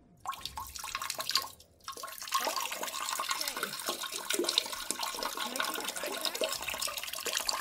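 Water rushing and splashing in a toilet bowl, continuous from about two seconds in.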